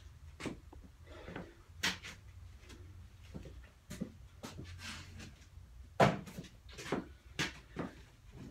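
Scattered knocks and clunks of objects being handled and moved about, the loudest about six seconds in.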